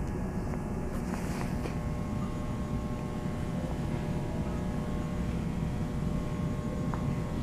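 Train running with a steady low rumble that neither rises nor falls, a few faint steady tones over it, and a couple of light clicks about a second in.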